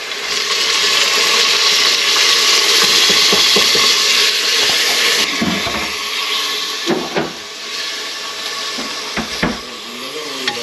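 Chopped tomatoes dropped into hot ghee and onions in a pressure cooker, setting off a loud sizzle for about five seconds that then dies down to a softer frying sound. A few sharp knocks of a spoon against the pot as the mixture is stirred.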